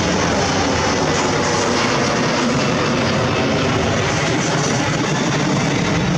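Airliner engine noise: a loud, steady rush, with wind buffeting the microphone.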